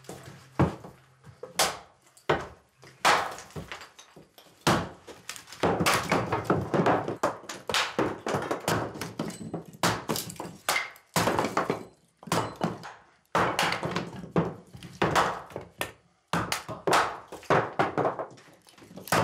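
Axe and hatchet splitting firewood on chopping blocks: a string of sharp wooden chops and thunks at an irregular pace, at times coming in quick runs.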